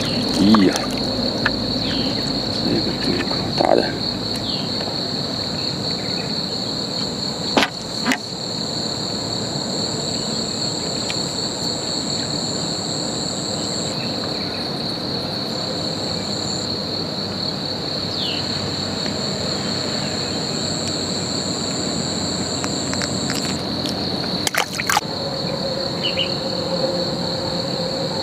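Steady high-pitched insect chorus with a second, higher drone that drops in and out. At the start a hooked fish splashes at the surface, and a few sharp clicks come around 8 s and 25 s.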